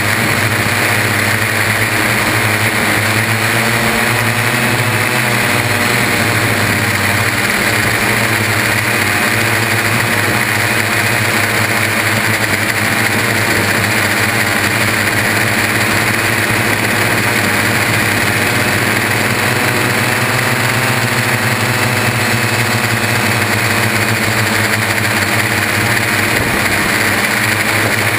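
The six brushless motors and propellers of a Y6 multicopter running in flight, a loud, steady whine heard right beside the props, its pitch shifting slightly with throttle.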